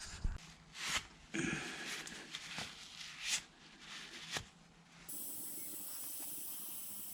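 Air being pumped into a plugged tubeless tractor tyre. A few short hissing bursts and knocks come first; then, about five seconds in, a steady hiss with a thin high whine starts and keeps going as the tyre fills toward 22 psi.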